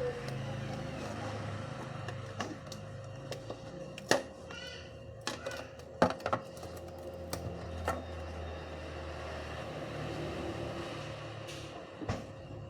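Scattered clicks and taps of hands working on a laptop, with two sharper clicks about four and six seconds in and a brief squeaky scrape between them, over a steady low hum.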